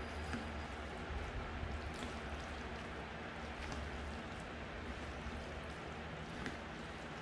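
Wooden chopsticks stirring and lifting jjajangmyeon noodles through black bean sauce in a bowl: soft wet mixing sounds with a few faint clicks, over a steady low room hum.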